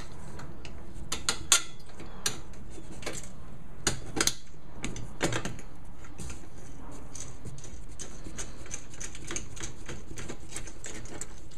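Irregular small metal clicks and taps of bolts and washers being handled and fitted into the splice of a galvanized steel roof-rack side rail, with a few louder clinks in the first half.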